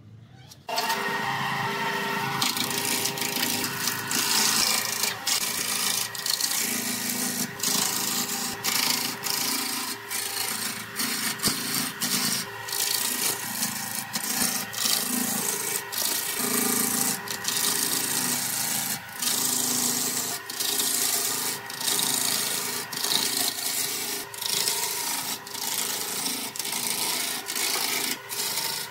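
Wood lathe spinning a rough, bark-covered log while a hand-held turning tool cuts into it, a rough scraping over a steady motor hum, starting about a second in. The scraping drops out briefly again and again as the tool bites and leaves the uneven wood while the log is roughed down.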